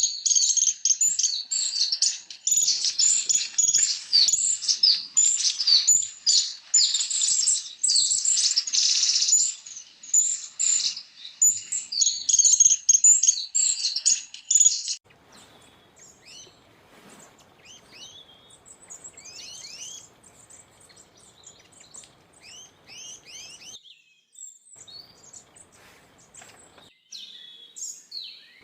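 Songbirds chirping: a dense, fast run of high chirps that cuts off abruptly about halfway through, giving way to fainter, scattered chirps with quick downward-sliding notes.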